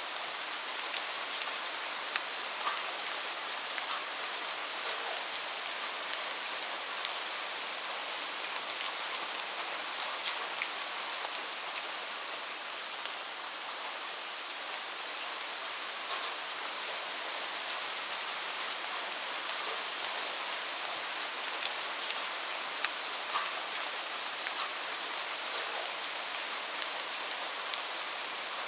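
Steady rain falling, an even hiss with many sharp individual drop ticks scattered throughout.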